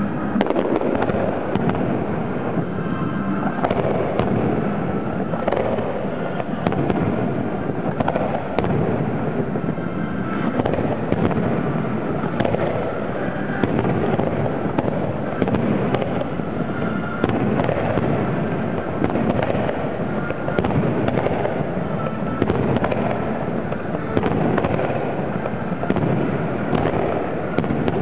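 Professional aerial fireworks display heard from the firing site: a continuous barrage of shells launching and bursting, many overlapping reports with no pause.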